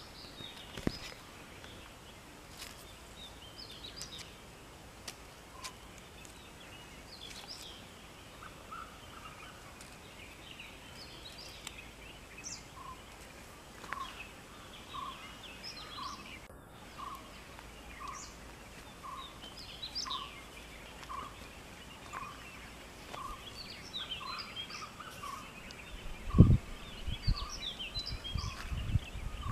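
Several birds chirping and calling in short bursts, with one bird repeating a short single note a little more than once a second through the second half. A few loud low thumps near the end.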